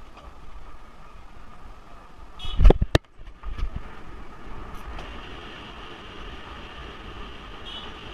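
Fat bike rolling along an asphalt road, heard from a handlebar camera: steady wind and tyre noise. About two and a half seconds in there is a loud thump, then a sharp click.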